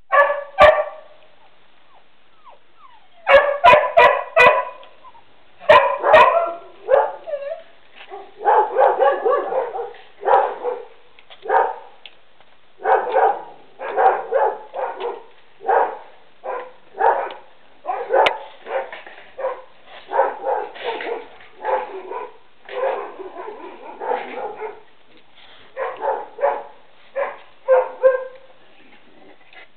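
A dog barking over and over in short, separate barks, in quick runs with brief gaps, after a pause of about two seconds near the start. A few sharp clicks come among the early barks.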